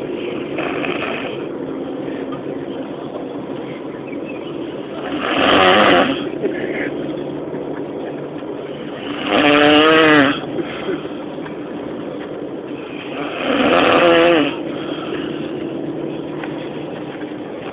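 A person snoring loudly in sleep: three long, buzzy snores about four seconds apart, each swelling up over about a second.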